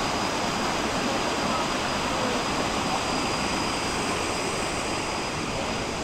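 Steady rush of waterfall water cascading over rocks, an even roar with no breaks, with a thin, steady high-pitched tone above it.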